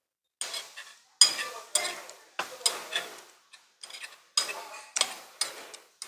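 A metal spoon scraping and clinking against a stone rice pot (dolsot) as rice is scooped out, in a quick series of short scrapes about two a second.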